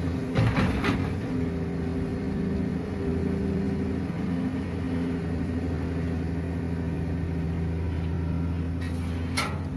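Hitachi EX200 hydraulic excavator's diesel engine running steadily as it works the boom, a low, even drone. A few sharp knocks come about half a second in, and another just before the end.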